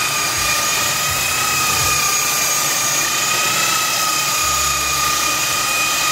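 Handheld electric belt sander running steadily on a wooden tabletop, its motor giving a steady whine.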